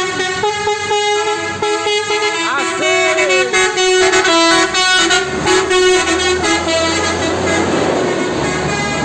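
Bus telolet air horn of the Basuri type, its roof-mounted trumpets playing a loud tune of stepped notes. Past the middle the tune fades into a noisy mix over a low engine rumble.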